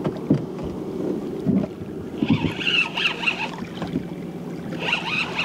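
A boat motor hums steadily while a spinning reel is cranked in bursts, about two seconds in and again near the end, as a hooked fish is played on a bent rod.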